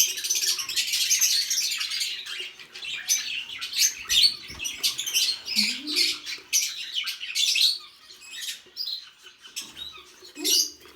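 Budgerigars chattering with rapid high chirps and squawks, busiest in the first few seconds and thinning out after about eight seconds.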